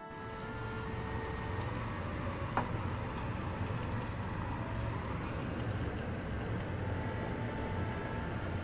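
Rice with sofrito and freshly added water simmering in a frying pan: a steady bubbling, sizzling hiss. A single brief click about two and a half seconds in.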